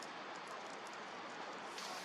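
Wood campfire burning and crackling: scattered sharp pops and snaps over a steady hiss.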